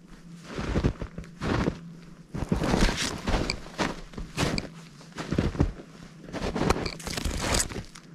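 Footsteps in fresh snow, irregular steps pushing through snow-covered brush.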